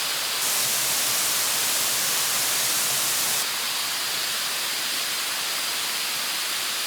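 Waterfall pouring heavily: a loud, steady rush of falling water, with a brighter hiss for about three seconds starting half a second in.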